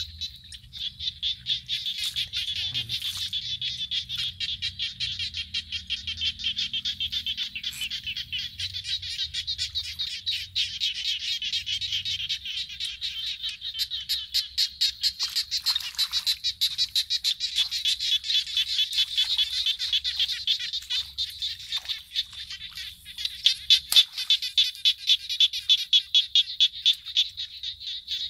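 A dense chorus of frogs calling from a flooded field, a steady stream of rapid pulses. One sharp click comes near the end.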